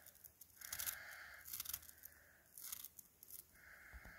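Tiny neodymium magnetic balls (Speks) squished and rolled between the fingers, faint gritty crunching and clicking in several short bursts.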